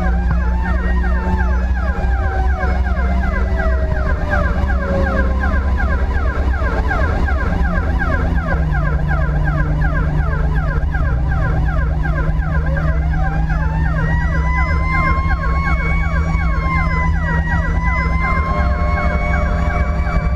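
Emergency vehicle sirens sounding on the move: a rapid yelp siren over a slower wailing tone that falls in pitch, then winds back up about halfway through, with a steady engine hum beneath.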